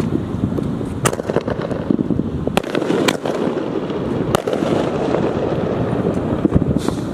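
Consumer fireworks going off: several sharp bangs spread irregularly through, over steady wind noise on the microphone.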